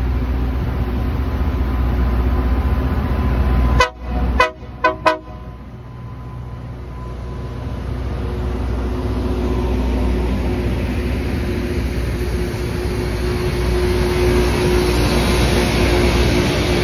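LORAM production rail grinder train running past, its engines giving a steady low drone, with a few short horn toots about four seconds in. From about halfway a rising hiss and whine builds as the grinding cars come by with their grinding stones on the rail.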